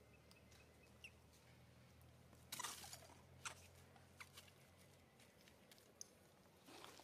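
Mostly quiet, with a few short rustles and crackles of dry leaf litter as macaques shift and move about on it, the loudest about two and a half seconds in.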